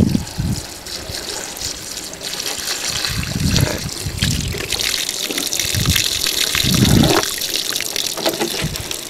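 Water pouring in a stream from a plastic one-gallon jug through cupped hands and splashing onto grass, with low thuds along the way. The water is being strained through the fingers to catch a bullet fired into the jug.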